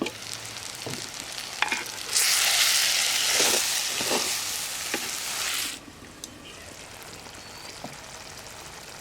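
Food frying in a hot pan with a spoon stirring, knocking and scraping now and then. A loud sizzle swells about two seconds in, then drops off shortly before six seconds, leaving a quieter frying hiss.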